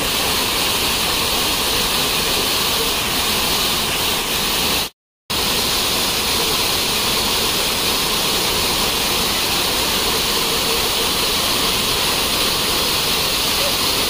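Steady rushing and splashing of a small rainy-season waterfall cascading down a rock face in full monsoon flow. The sound drops out briefly about five seconds in.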